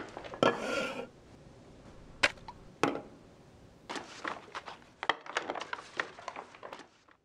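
A brown paper lunch bag rustling and crinkling as things are pulled out of it, with sharp knocks of a bowl, plate and other items set down on a wooden table. The rustling and clatter grow busier in the second half as the bag is upended and shaken out.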